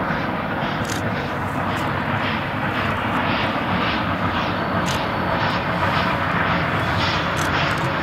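Steam locomotive OKz32-2 working a train, its exhaust chuffing in an even rhythm of about two to three beats a second over a steady rumble.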